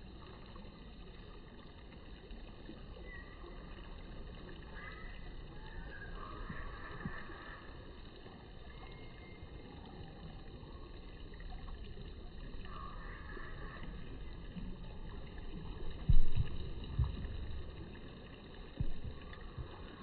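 Outdoor background noise: a low, steady rumble, broken about three-quarters of the way through by a few heavy low thumps.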